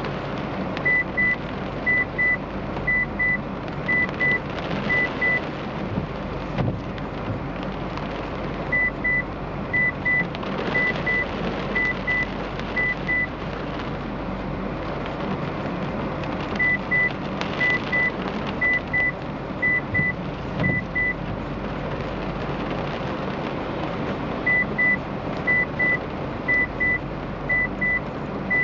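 Steady rain falling on a car, heard from inside the cabin. Over it, an electronic beeper sounds short double beeps in sets of five pairs, repeating about every eight seconds.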